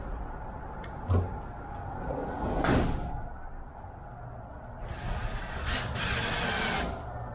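Bench work on wood and tools: a dull thump about a second in, then scraping and rubbing sounds, with a longer harsh rasp near the end.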